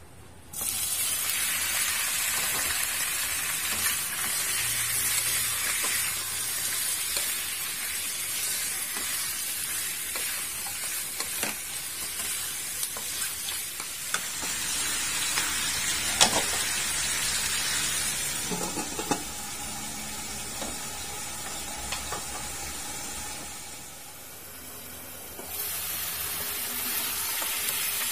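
Raw pork ribs dropped into hot oil in a nonstick wok, setting off a sudden sizzle about half a second in that keeps going as they sear and are stirred with a wooden spatula. The spatula knocks against the pan now and then, and the sizzle drops for a moment near the end before picking up again.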